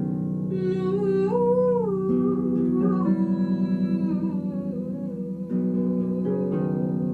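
Harp played with plucked low notes under a hummed, wordless vocal melody that slides between pitches.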